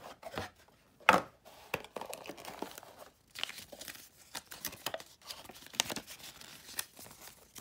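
A card-game box opened with a sharp click about a second in, then irregular crinkling and rustling as the folded paper rule sheet is pulled out and unfolded.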